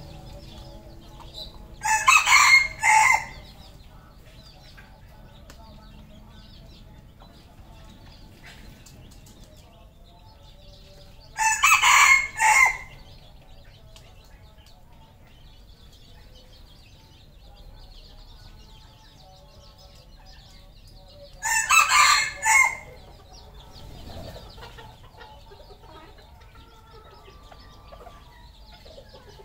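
Red junglefowl rooster crowing three times, about ten seconds apart. Each crow is short, about a second, with a brief break before its last note.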